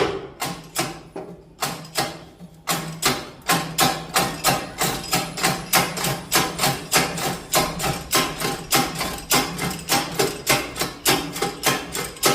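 Hammer blows on metal, a few spaced strikes and then a steady run of about three a second, driving a press-in wheel bearing into its housing by hand.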